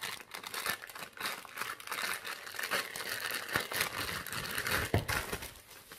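Thin clear plastic bag crinkling as it is pulled off and unwrapped from a spare shoulder strap. There is a soft bump about five seconds in.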